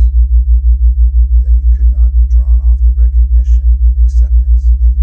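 Loud low hum pulsing evenly about six times a second, a theta-wave isochronic tone, with a faint voice underneath.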